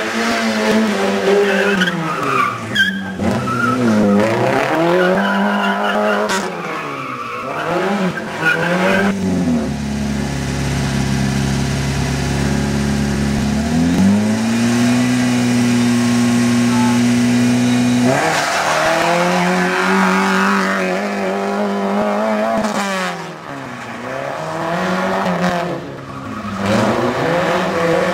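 Peugeot 106 rally car's engine revving up and down again and again as the car is thrown around a tight course, with tyres squealing at times. For several seconds in the middle it holds a steady low note, then rises and holds a steady higher rev for a few seconds.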